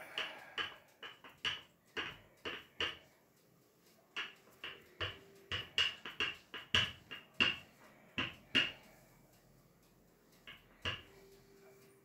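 Wooden handled rolling pin rolled back and forth over pastry dough on a table, clacking in short sharp knocks about twice a second, in runs with pauses between them.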